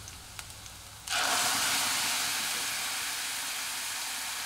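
Boiled masoor dal poured into hot oil with fried onions and tempering spices: a sudden loud sizzle about a second in, then a steady hiss that slowly eases. Before it, faint frying with a few light clicks.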